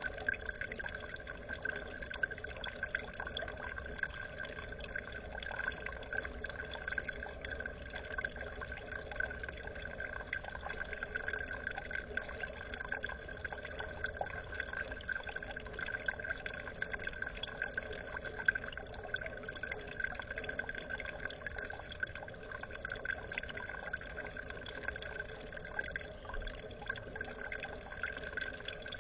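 Steady trickle of water running into a small garden pond, with small drips and light splashes from a small bird bathing in the shallows.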